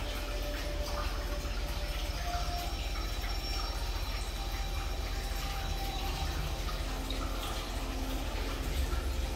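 Water running and dripping in a small tiled room, over a low steady hum.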